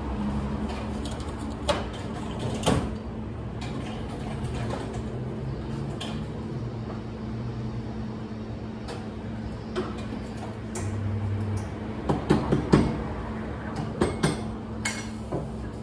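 Café counter sounds while coffee is made: a steady low hum of the espresso machine and equipment, with scattered clinks and knocks of cups, jugs and machine parts. There are a couple of knocks about two seconds in and a cluster of them about twelve to fifteen seconds in.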